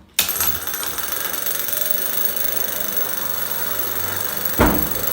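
Homemade battery-powered door alarm going off: its small motor runs with a steady, loud metallic rattle. It starts just after the beginning, with a louder knock near the end before it stops.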